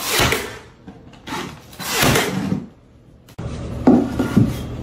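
Baseboard trim being rubbed by hand in two long rasping strokes, with a shorter one between them. A couple of light knocks follow near the end as trim is set against the wall.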